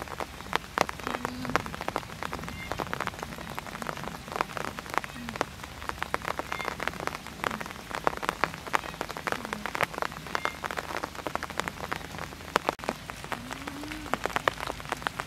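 Rain falling steadily, with many separate drops ticking on leaves and other surfaces. A few brief low tones sound now and then, one rising and falling near the end.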